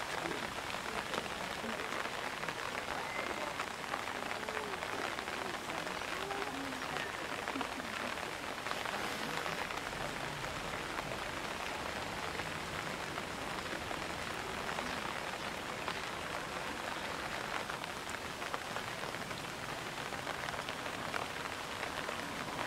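Heavy rain pouring steadily onto rocks and the water of a sea lion pool, an even hiss with no breaks.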